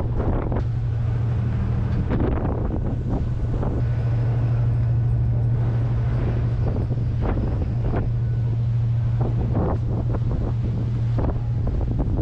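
Wind buffeting the microphone over the steady low drone of a car ferry's engines.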